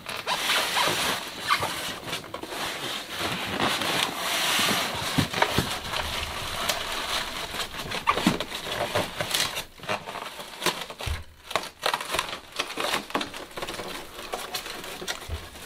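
Polystyrene foam packing case being pulled apart and its top half lifted off: foam rubbing and scraping against foam, with crinkling plastic wrap and scattered light knocks.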